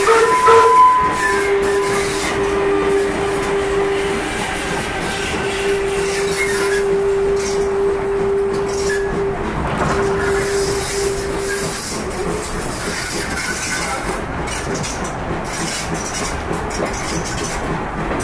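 Electric passenger train passing on the adjacent mainline: a steady run of wheels on track with a single steady whining tone that cuts out about twelve seconds in, leaving the rumble of the train.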